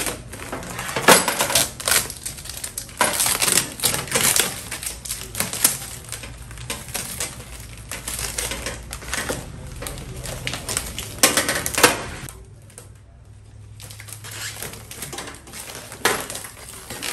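Plastic wrap crinkling and packing tape being peeled and torn off a cardboard holder of gas-stove burner parts, with a rapid run of small clicks, knocks and rattles. It dies down briefly about three-quarters of the way through, then picks up again.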